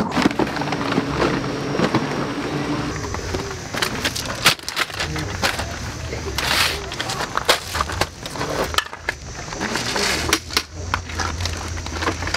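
Irregular knocks, clicks and clatter of camping gear being handled and packed by hand, among it the metal frame of a folding camp chair.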